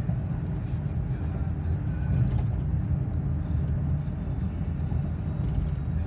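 Steady low rumble of a car travelling at freeway speed, heard from inside the cabin: engine and tyre road noise.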